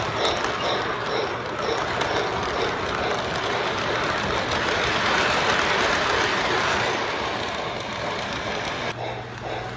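Lionel model train cars rolling past close by: a steady rush of metal wheels on the track, with light regular clicking in the first couple of seconds, swelling in the middle and fading as the last cars go by. A low steady hum comes in near the end.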